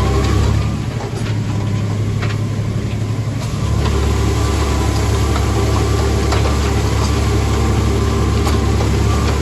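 Tractor engine running steadily while pulling a speed disc through the field, with scattered light clicks and rattles. The deep hum drops away about a second in and comes back a few seconds later.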